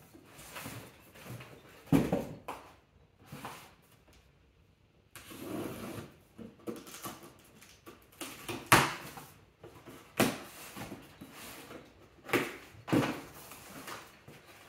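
Cardboard boxes and paper packing being handled: rustling and scraping cardboard with irregular knocks and thumps, the sharpest a little past the middle.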